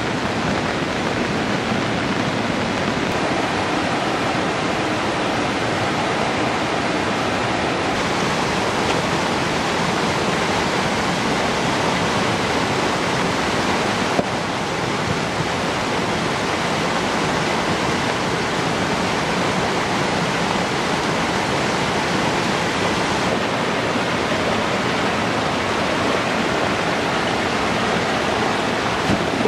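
Flash-flood water rushing, loud and steady, its tone shifting slightly a few times.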